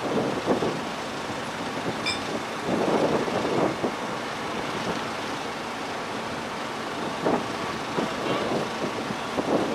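Steady low running of the push tug's diesel engine as it moves a loaded barge, with gusts of wind buffeting the microphone.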